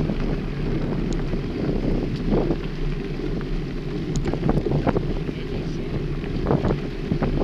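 Wind buffeting the handlebar-mounted microphone over a steady low rumble of bicycle tyres rolling on a gravel trail, with scattered short clicks and rattles from the bike and the path.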